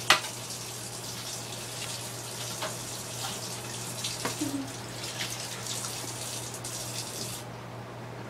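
Kitchen tap running water over raw chicken as it is rinsed, with a sharp knock at the start and a few light knocks from handling. The water is shut off near the end.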